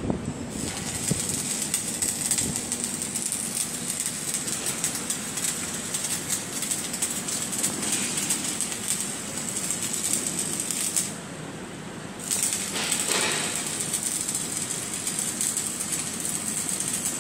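Arc welding on a steel main beam: a steady crackling hiss that breaks off about eleven seconds in and starts again a second later.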